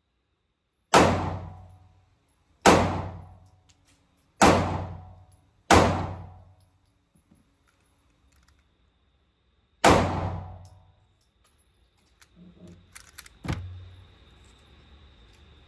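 Five pistol shots fired at uneven intervals, each ringing out in the indoor range's echo, the last after a longer pause. Near the end come small clicks and a lighter knock of the gun being handled.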